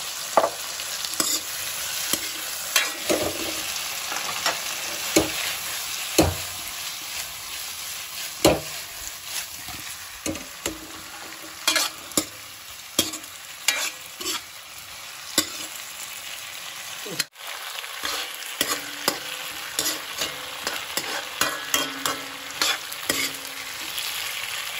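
Potatoes frying in a sauce of soy sauce and ketchup in a dark metal wok: a steady sizzle, with a slotted steel spoon scraping and clacking against the pan in irregular knocks as the potatoes are stirred and tossed. The sound drops out for an instant about two-thirds of the way through.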